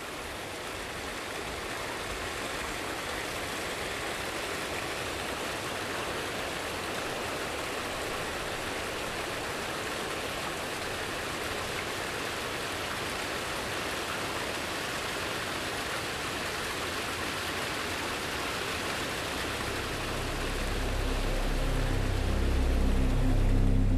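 Steady rush of flowing water. Low music fades in from about twenty seconds on.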